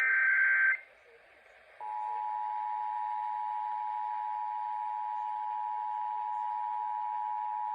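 The tail of an Emergency Alert System SAME header data burst, a short harsh digital screech, then about a second of quiet. Then the EAS two-tone attention signal starts about two seconds in and holds steady, announcing a required monthly test.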